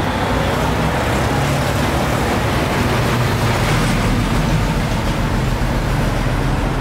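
Motor vehicle engine running steadily, a low hum under a broad, even wash of noise.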